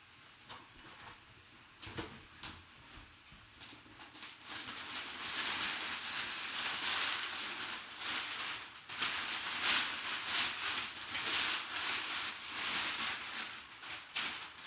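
A sealed cardboard box being opened: a few scattered clicks and taps, then from about four seconds in, steady rustling and crinkling of packing material with many small crackles as it is pulled about.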